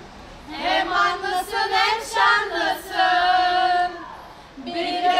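A woman singing in phrases with long held notes and a slightly wavering pitch, breaking off briefly about four seconds in.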